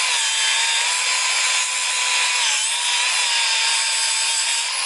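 A power tool running steadily: a loud hissing noise with a steady whine that sags briefly about halfway through.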